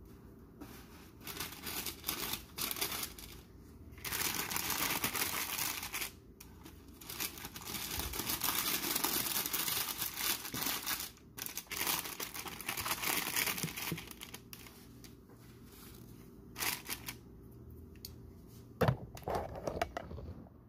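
Parchment paper crinkling and rustling in long stretches as it is gripped and folded around the edge of a pizza on a baking sheet, with a single sharp knock near the end.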